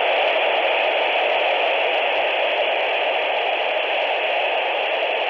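Motorola Minitor VI pager's speaker playing loud, steady radio static: a hiss of open-channel noise recorded with a stored voice message.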